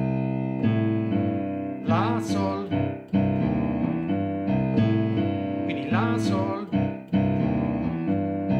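Digital piano playing a left-hand boogie-woogie bass line on its own: a rolling pattern of low notes moving through C, G, E-flat and E in C major, the phrase repeating about every four seconds.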